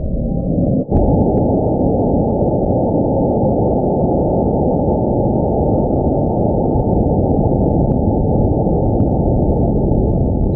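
High-power rocket on a Cesaroni J420 motor lifting off the pad: a loud, steady rushing roar that sets in hard about a second in.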